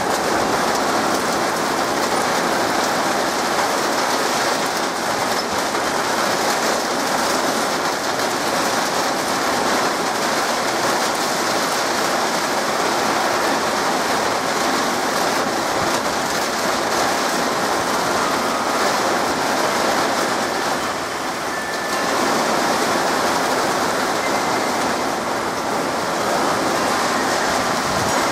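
Heavy rain pouring down in a steady, dense rush. It eases slightly for a moment about three-quarters of the way through.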